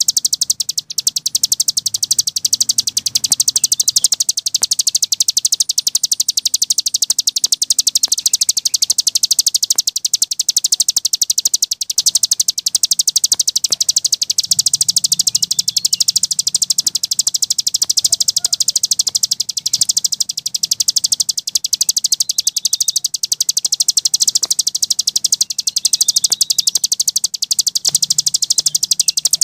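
Cici gunung songbird singing a continuous, very fast rattling chatter of high notes without pause, the unbroken "ngebren" song used as masteran for training cage birds.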